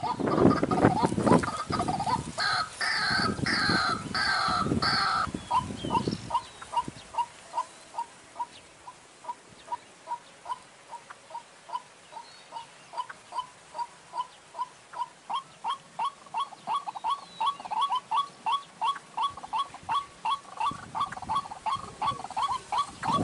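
White-breasted waterhen (ruak-ruak) calling: a few seconds of loud, harsh croaking calls, then a long run of short repeated notes, about two or three a second, that grow a little louder and quicker toward the end.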